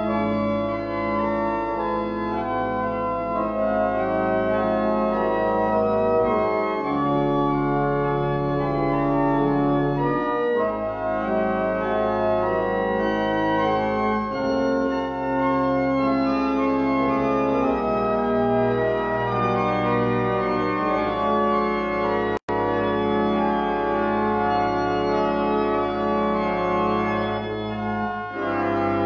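Church pipe organ playing the closing voluntary: sustained full chords changing every second or two, with low bass notes coming and going. The sound drops out for an instant about two-thirds of the way through.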